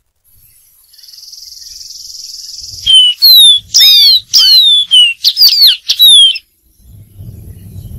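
Dark-throated seedeater singing a phrase of about eight loud, clear whistled notes, most of them sliding downward, starting about three seconds in. A steady high hiss comes before the song, and a low rumble begins near the end.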